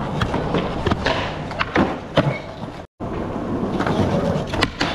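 Skateboard wheels rolling over rough concrete with a steady rumble, broken by several sharp clacks of the board hitting the ground. The sound drops out for an instant about three seconds in, then the rolling picks up again.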